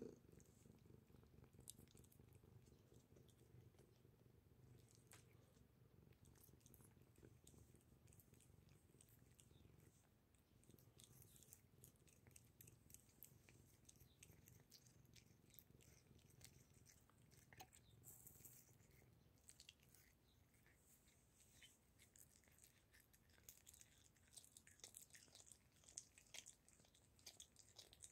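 Faint purring from a domestic cat at a raw goose neck, with wet clicks of licking and chewing on the raw meat that come thicker in the second half.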